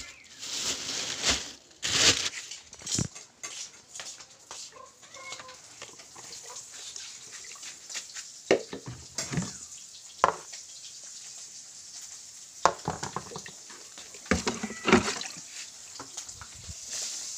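Plastic containers and a rubber feed bowl being picked up, set down and knocked together, with plastic bags rustling: a run of irregular knocks and clatter, the loudest around two seconds in, then scattered sharp knocks between about 8 and 15 seconds.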